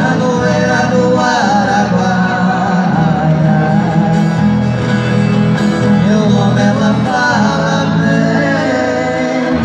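Two men singing a Brazilian caipira (sertanejo raiz) song in duet, accompanied by a strummed acoustic guitar and a viola caipira.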